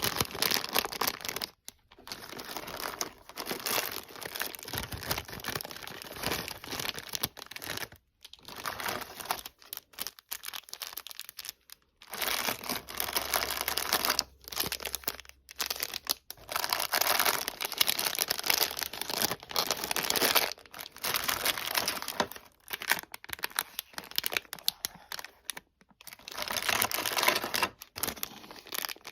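Toy packaging crinkling and tearing as it is unwrapped by hand. The rustling comes in stretches of several seconds with short pauses between them.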